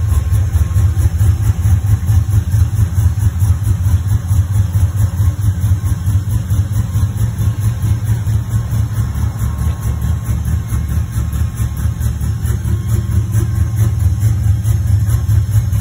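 A 5.3-litre LS V8 with long-tube headers and a custom-ground cam, swapped into a 1967 Chevrolet C10, idling steadily with a deep exhaust note.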